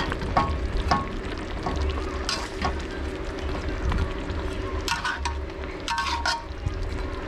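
A metal spoon scraping and clinking against a wok as fish curry simmers. There are a few short strokes: about half a second in, at one second, around two and a half seconds, and a pair near five and six seconds. A steady low hum runs underneath.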